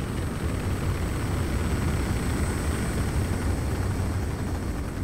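Rocket engine firing: a steady, deep rumbling roar with a hiss above it and a thin high whine, easing off slightly near the end.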